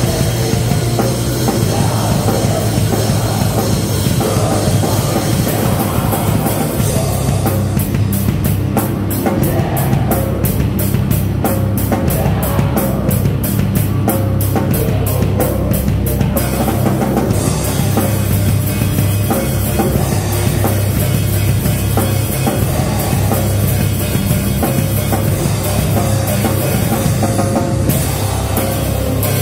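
A live band playing loud heavy rock on drum kit and amplified electric guitars. From about seven to sixteen seconds in, fast, evenly spaced cymbal hits ring over the top.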